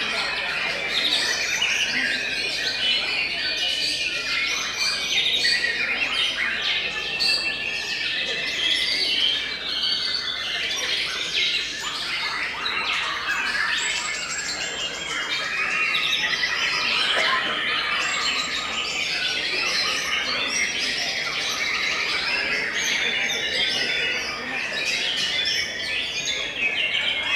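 Several caged white-rumped shamas (murai batu) singing at once in a songbird contest: a dense, unbroken tangle of overlapping whistles and chatter, with bursts of very fast high trills.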